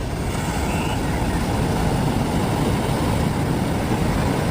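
Truck engine running steadily, an even rumbling noise with no changes in pitch.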